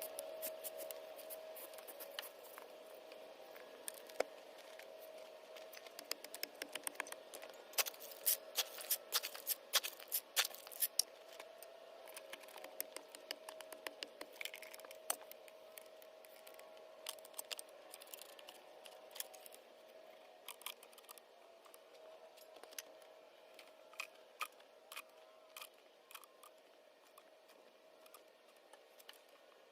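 Gravel clattering and rattling as it is shoveled in around a buried pipe and valve: a dense run of sharp clicks about a third of the way in, then scattered ones, over a faint steady hum.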